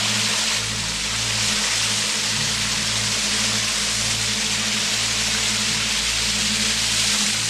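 Waterfall: a steady, even rush of falling water. Low sustained musical notes that change every half second or so sit beneath it.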